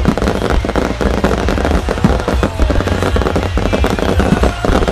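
Starmine barrage of aerial firework shells: a dense, unbroken run of overlapping bangs and crackle from launches and bursts, several a second, over a continuous low rumble.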